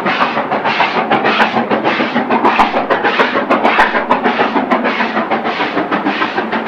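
Steam locomotive working under steam, its exhaust beats a steady, even chuffing at about three to four a second.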